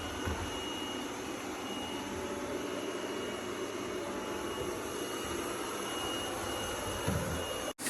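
Robot vacuum cleaner running: a steady whirr of its suction fan with a thin, high, constant whine over it, cut off abruptly just before the end.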